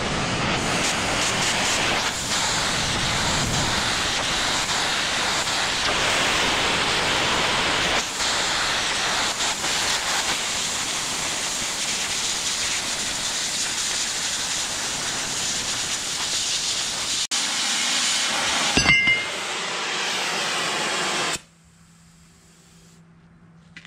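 Oxy-acetylene cutting torch with a number 0 tip cutting steel plate: a steady, loud hiss of the flame and cutting-oxygen jet. There is a brief louder burst about 19 seconds in, and the hiss cuts off suddenly about 21 seconds in.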